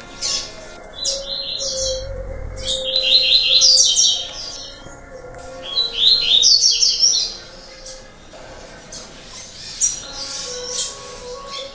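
Double-collared seedeaters (coleiros) singing: several bursts of fast, high twittering song, loudest about three to four seconds and six to seven seconds in.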